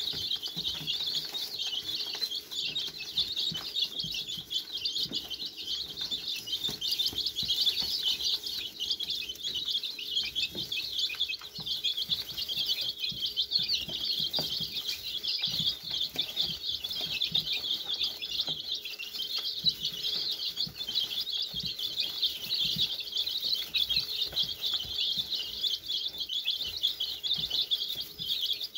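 A flock of two-week-old chicks peeping continuously, many at once, while pecking a grain mix from a plastic trough feeder, with a steady patter of beak taps under the peeping.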